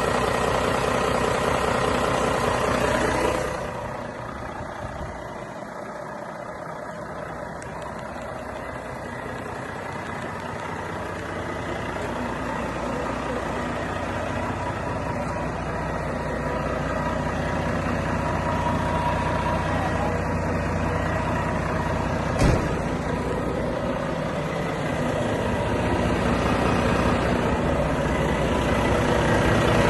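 Renault T480 truck's 13-litre six-cylinder diesel idling steadily. It drops in level about three seconds in, then slowly grows louder again, with a single sharp click about two-thirds of the way through.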